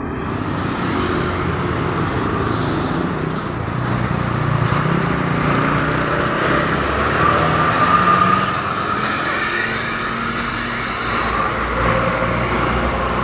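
Road traffic noise: heavy vehicle engines running as they pass, with no clear horn melody; loudest about eight seconds in.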